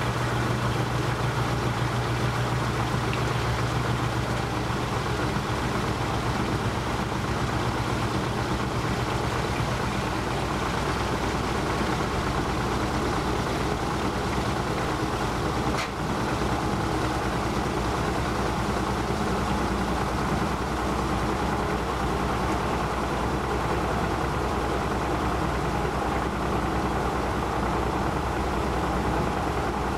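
1949 Maytag AMP automatic washer in its final spin: the motor and spinning tub make a steady mechanical hum. A low hum fades out over the first several seconds, and there is a single brief tick about halfway through.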